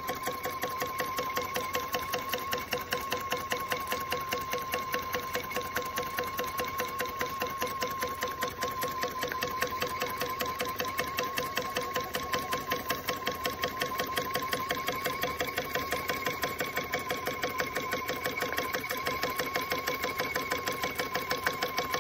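Jensen 25GR toy live-steam engine running steadily, its flywheel spinning fast. It makes a rapid, even ticking rhythm over a steady high tone.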